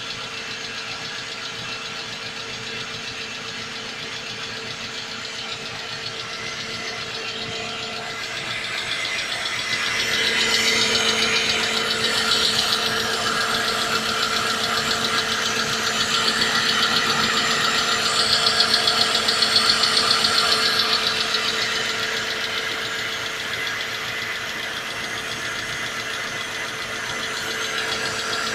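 Mercedes-Benz W211 E200 Kompressor's supercharged four-cylinder engine idling with a rapid knocking, the knock that shows after a cold start. It grows louder about a third of the way in, then eases back near the end.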